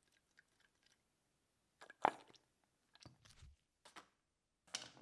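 Handling noises: a few faint ticks, then four short, sharp clicks and crinkly knocks of small metal parts and packaging being handled and set down. The one about two seconds in is the loudest.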